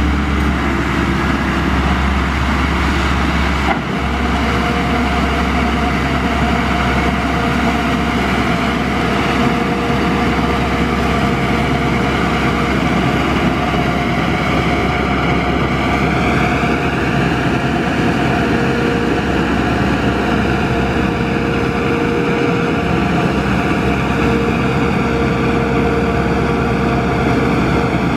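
Crawler tractor's engine running steadily under load while it pulls a rotary tiller through a flooded rice paddy, its pitch rising slightly about halfway through and then holding.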